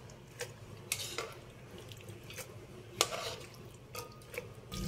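Metal tongs tapping a pan and a glass blender jar as softened dried chiles are lifted into the jar, with wet dripping: a few scattered light clinks, the sharpest about three seconds in.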